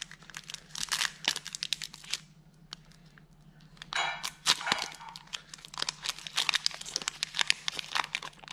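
Foil wrapper of a Pokémon card booster pack being torn open and worked by hand: crisp crinkling and crackling, with a lull of a second or two partway through.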